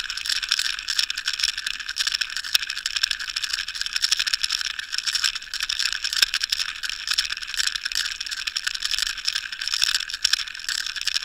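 Steady, dense crackling rattle of water rushing past a towed Water Wolf underwater camera, picked up through its sealed housing, with a few faint clicks.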